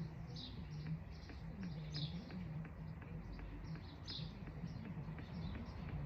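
A small bird chirping over and over, short high chirps every third to half second, three of them louder. A low wavering hum runs underneath.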